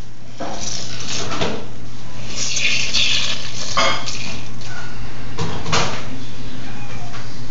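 Hands mixing ground meat and bread in a stainless steel mixing bowl, with irregular scraping and a few sharp knocks against the metal.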